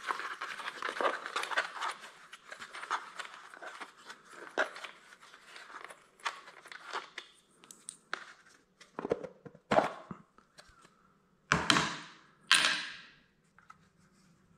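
Plastic air cleaner cover being worked loose and lifted off a mower engine by hand: rustling and scraping of plastic with scattered clicks and knocks, then two louder scrapes about two seconds before the end.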